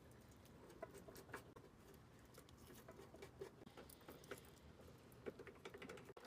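Near silence with faint, scattered small clicks and rustles, from a cable being handled during wiring work.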